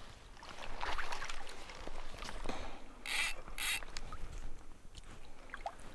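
Handling noise of a landing net and spinning rod and reel being brought in: scattered rustles and small knocks, with two short hissing bursts about three seconds in.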